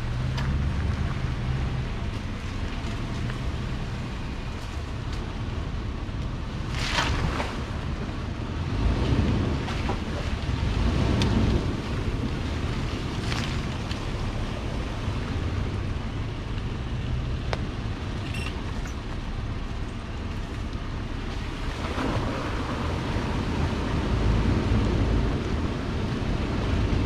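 Vehicle driving slowly over a rough dirt trail: a steady low engine and road rumble that swells a few times, with wind noise on the microphone and a few sharp knocks or rattles.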